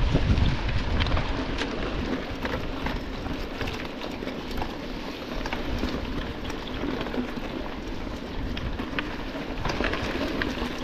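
Mountain bike riding over a rough trail: steady tyre and ground noise with a constant crackle of small clicks and rattles over a low rumble, and a heavier jolt right at the start.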